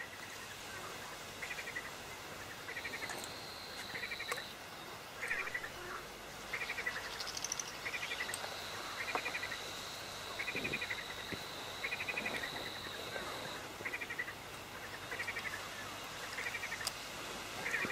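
A frog calling over and over, short rattling croaks about once every second and a bit. A thin, steady high-pitched trill joins in twice, for a second or so and then for about five seconds.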